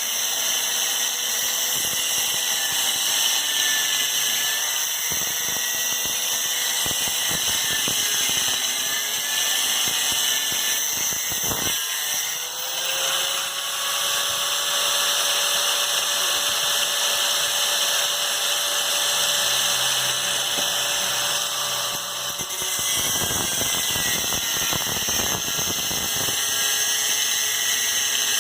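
Electric hand power tool running steadily on metal, a continuous high hiss with a held whine. It eases off briefly twice, about 12 and 23 seconds in, then runs on.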